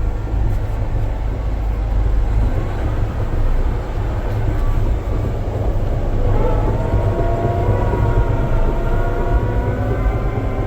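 Caterpillar D8T crawler dozer's six-cylinder diesel running under load as the machine moves off in gear, a steady deep rumble. From about six seconds in, a whining tone joins it and climbs slowly in pitch.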